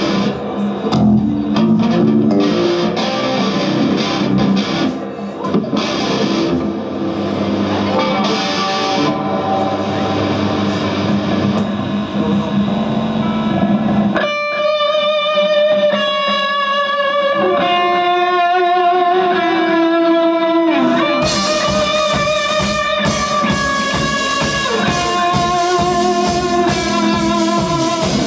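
Live rock band: electric guitar and bass play through an amplifier. About halfway in, a singer comes in with long held notes with vibrato, and a little later the drum kit joins and the full band plays.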